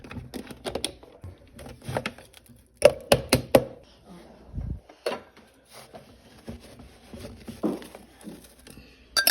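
Irregular clicks and knocks of kitchen things being handled, with a dull thud about halfway through.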